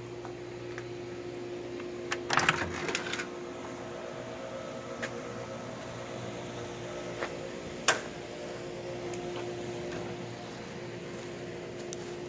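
Steady machine hum with one constant tone. A cluster of clicks and knocks comes about two to three seconds in, and a single sharp click near eight seconds.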